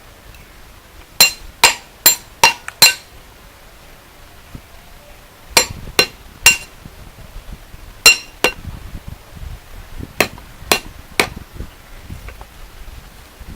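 Sharp, hard blows with a short ringing tone, in bursts: five quick blows about a second in, then three, then two, then three more, each about half a second apart.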